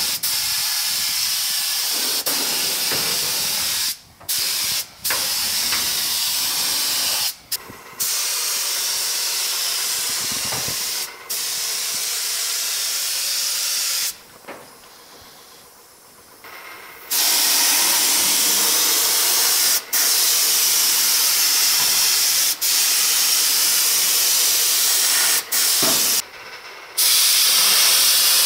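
Air-powered side-cup spray gun hissing steadily as it sprays rust conversion paint. The spray runs in long stretches, the trigger let off briefly several times and for about three seconds in the middle.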